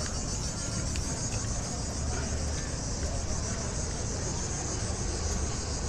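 A dense chorus of cicadas buzzing continuously at a high pitch, with a fast shimmering pulse. A low rumble sits underneath.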